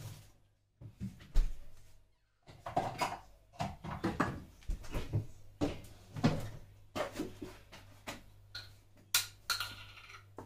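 Irregular clatter and knocks of kitchenware being handled, with a steady low hum underneath. There are a couple of ringing clinks near the end.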